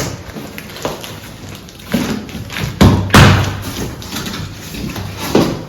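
Several irregularly spaced thumps and knocks, the loudest about three seconds in with a short low ringing after it.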